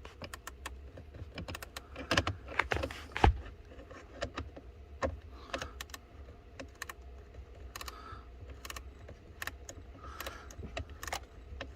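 Irregular clicks, taps and knocks of an 8 mm ratcheting wrench and its handling as it backs out a blend door actuator mounting bolt, with a few louder knocks.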